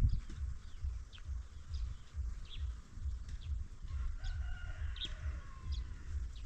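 A rooster crows once, a drawn-out call starting about four seconds in. Short, high bird chirps come and go throughout, over a steady low rumble.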